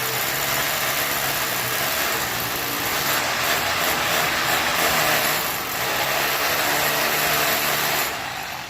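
A motor-driven construction machine running steadily, a dense even noise over a low hum.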